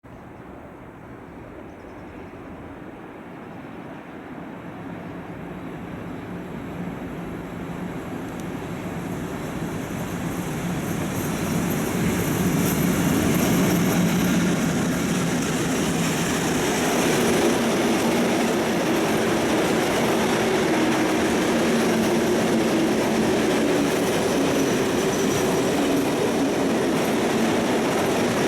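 Freight train approaching and passing close by: a growing rumble that gets louder over roughly the first twelve seconds, then a steady loud run of wagons, with a high wheel squeal in the second half.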